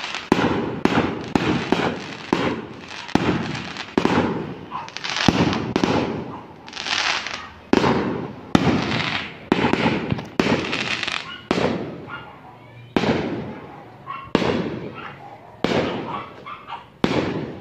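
Aerial fireworks going off in quick succession: a sharp bang more than once a second, each trailing away in a long echo, with a brief lull a little after the middle.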